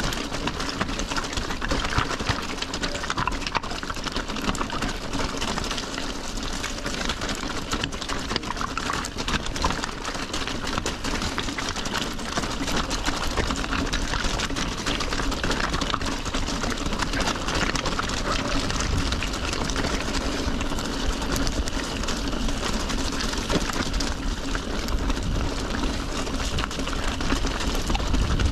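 Mountain bike riding down a rocky, wet stone track: tyres crunching over loose stones and the bike rattling continuously in fine rapid clicks, with a low rumble from the rough ground.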